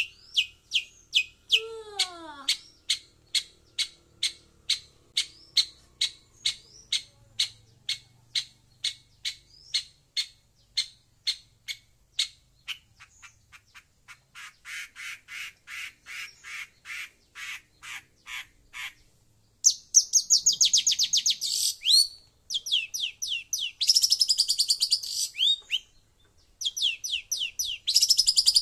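Long-tailed shrike calling: a long run of sharp, repeated high notes, about three a second, then, about two-thirds of the way through, loud bursts of fast, harsh chattering.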